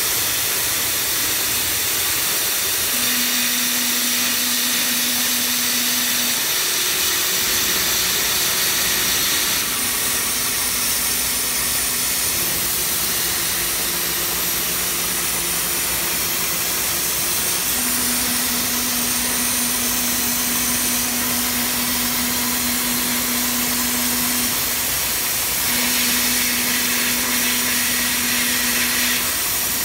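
Lincoln Electric plasma cutter on a CNC table cutting 3/16 in steel: the plasma arc and its air stream make a loud, steady hiss. Under it runs a low hum that steps to a new pitch every few seconds.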